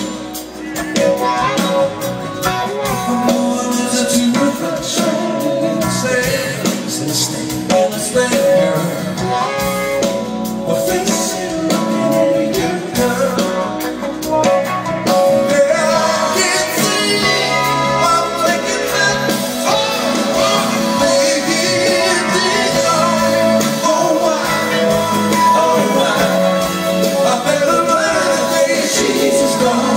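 Live rock band playing electric guitars, bass, drums and keyboards, with singing.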